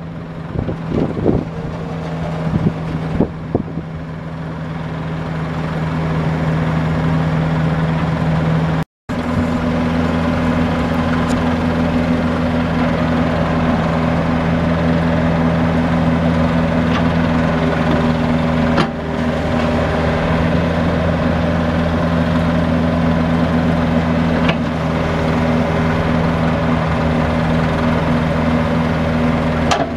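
Yanmar four-cylinder diesel engine of a Komatsu PC40MRX compact excavator running steadily at an even pitch while the boom and bucket are worked. The sound cuts out briefly about nine seconds in.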